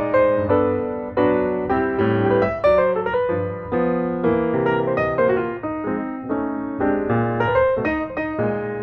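Background piano music, a melody over chords with notes struck at a moderate pace.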